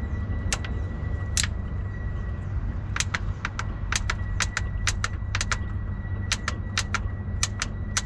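Thin plastic bottle of gasoline, held upside down in the carburettor, crackling and popping in irregular sharp clicks, some in quick pairs, as the fuel drains down into the carburettor. A steady low rumble runs underneath.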